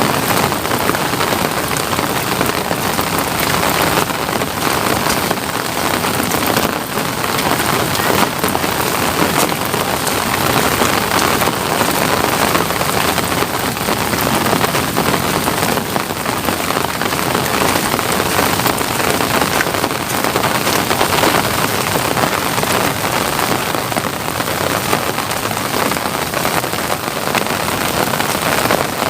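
Steady rain falling: a dense, even hiss of drops with many small ticks, holding at the same level throughout.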